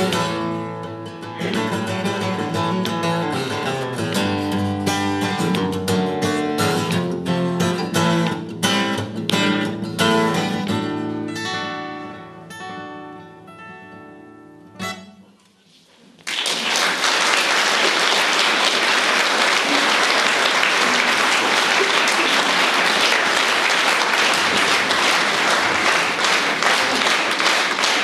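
Strummed acoustic guitar with violin plays the end of a song, slowing and fading to a last chord about fifteen seconds in. After a brief hush, an audience breaks into steady applause.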